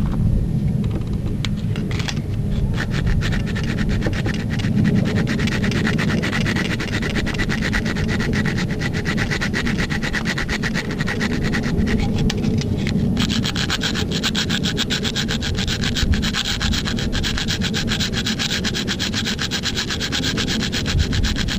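Fast, continuous metal scraping: a blade cutting and scraping the broken-off aluminum heater hose fitting's remnants out of the threaded port in the intake manifold. The strokes grow harsher about thirteen seconds in.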